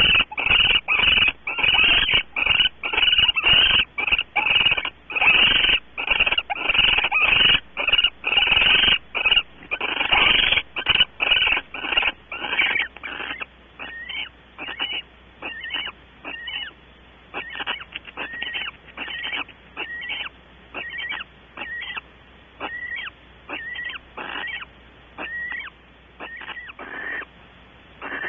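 Barn owls in the nest cavity giving rapid rasping hiss calls, about two a second. The calls are loud at first, then grow fainter and more spaced about halfway through.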